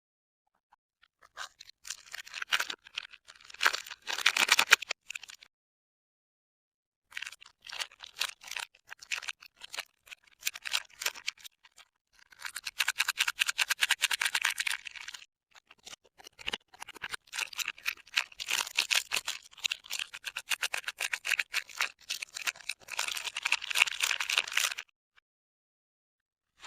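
Soap packaging being unwrapped by hand: crinkling and tearing of the wrapper in four bursts, separated by short silences.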